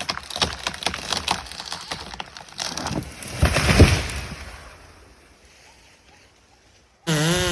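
A felled tree cracking and snapping as it goes over, then crashing down through its branches with a loud swell that peaks a few seconds in and dies away. Near the end a chainsaw starts up abruptly.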